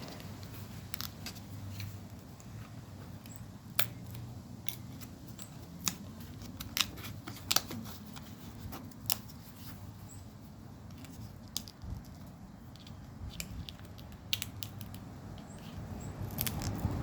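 Arm rest cover being peeled and pulled off its pad and metal frame by hand: scattered sharp clicks and snaps, a few louder ones around the middle, over a low steady hum.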